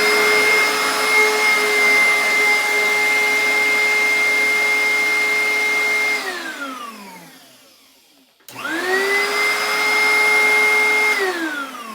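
A 1998 Oreck XL upright vacuum cleaner's motor runs with a steady, really loud whine, then is switched off about six seconds in and winds down in pitch. It is switched on again about two seconds later and winds down once more near the end. The owner judges that it needs a new belt and that its pipes are clogged.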